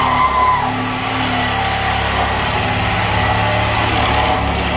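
Reciprocating saw running steadily at full speed, cutting through wooden floor boards.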